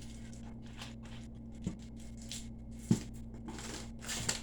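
Close-up wet chewing and mouth smacking while eating ham hock, with irregular short smacks and a few sharper clicks, over a steady low hum.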